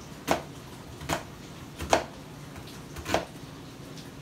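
Kitchen knife cutting an onion on a cutting board: four separate chops, each a sharp knock of the blade on the board, roughly a second apart.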